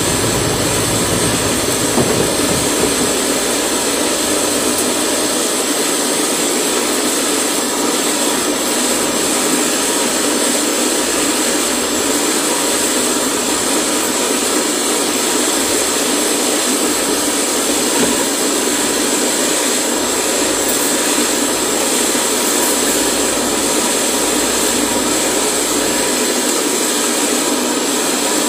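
Gas-heated cotton candy machine running steadily while it warms up before production, its spinner head and burner flame lit, making a loud, even, unchanging noise.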